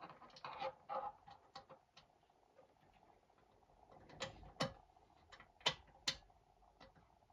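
Scattered clicks and knocks of a hand tool and metal parts as a new glow plug is screwed into a diesel heater. A quick run of clicks comes in the first second, then four sharper clicks between about four and six seconds in.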